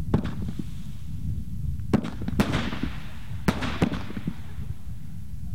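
Aerial fireworks bursting: a sharp bang just after the start, two more around two seconds in and another two around three and a half seconds in, each followed by a short fading crackle, over a steady low rumble.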